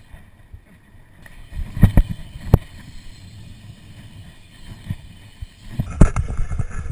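BMX bike riding on skatepark concrete: a continuous low rumble of the tyres rolling, broken by sharp knocks and rattles from the bike about two seconds in (a quick pair, then one more) and again near the end.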